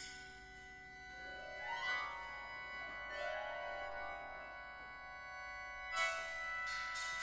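Contemporary chamber ensemble playing live: held high tones with upward pitch glides, then a sharp struck attack about six seconds in.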